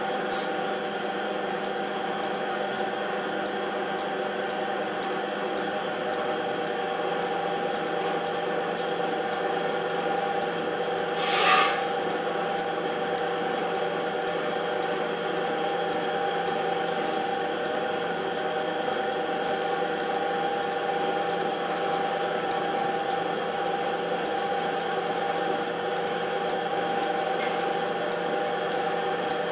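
Stick arc welding on a steel pipe: a steady electric hum from the welding machine, with one brief hiss about twelve seconds in.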